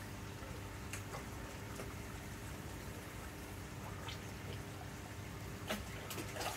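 Koi pond water trickling and bubbling over a steady low hum, with scattered small ticks and two sharper clicks near the end.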